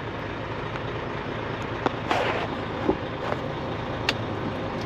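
Truck engine running with a steady low rumble, with a few light clicks and a brief rushing noise about two seconds in.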